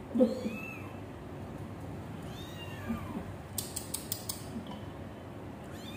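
Several short, faint, high-pitched mews from hungry one-month-old kittens waiting to be fed milk, with a quick run of light clicks around three and a half to four seconds in.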